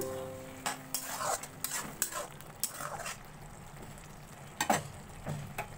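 Spatula stirring and scraping thick straw mushroom curry in a kadai, a string of clinks and scrapes against the pan, with the curry sizzling underneath.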